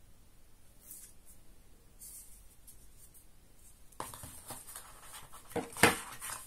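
Hands handling a plastic wall charger and a cardboard box: faint rustling at first, then from about four seconds in louder scraping and rubbing inside the box, with a couple of sharp knocks near the end, the loudest about six seconds in.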